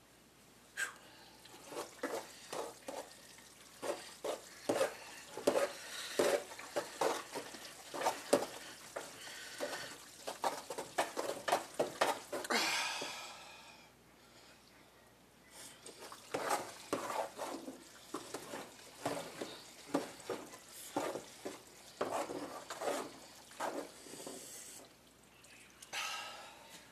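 Spaghetti being stirred and worked in a pot: a busy run of irregular wet clicks and squelches, with a short hissing rush about halfway through and a brief lull after it before the clicking resumes.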